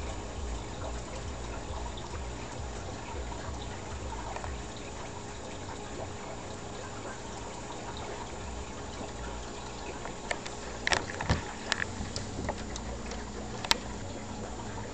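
Steady background hiss with a faint hum. A handful of sharp clicks or taps come about eleven seconds in, and one more a couple of seconds later.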